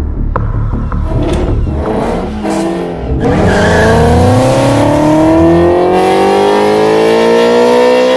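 Lamborghini Gallardo's V10 engine rumbling low, then from about three seconds in accelerating hard, its pitch climbing steadily for about five seconds.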